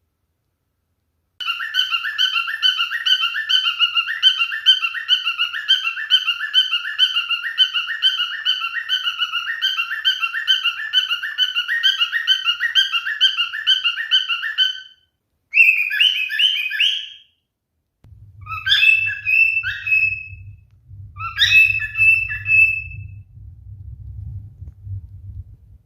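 Male cockatiel singing: a long, fast run of repeated chirping notes lasting about thirteen seconds, then after a brief pause a short burst and a few shorter phrases of calls and whistled notes.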